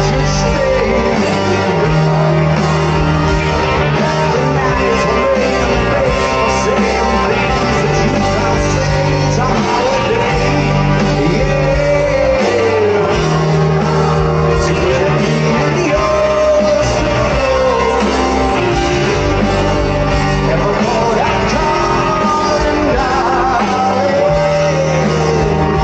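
Live rock band playing through the concert sound system, with a sung melody over guitar and held bass notes, heard from among the audience.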